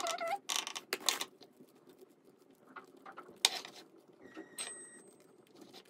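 Silicone spatula dropping and spreading pastry cream over biscuits in a glass baking dish: soft wet scraping, with short squeaks of the spatula on the glass near the start and again later, and a sharp click about three and a half seconds in.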